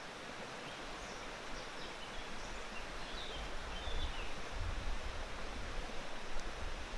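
A stream flowing: a steady rush of water, with a few faint high chirps in the first half.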